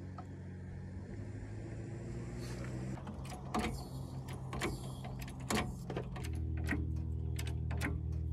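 A dirt bike being loaded onto a hitch-mounted motorcycle carrier: several sharp metal clanks and knocks over a steady low hum that shifts in pitch twice and stops near the end.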